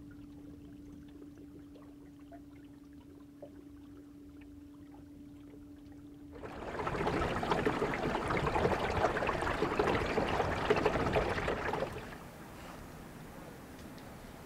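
Water splashing and trickling, loud for about five seconds in the middle and fading away near the end. Before it, only a faint steady hum.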